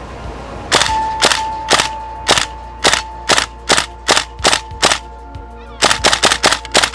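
GHK version 3 gas blowback airsoft rifle firing: about ten single shots, roughly two a second, then after a short pause a quick string of about seven shots near the end.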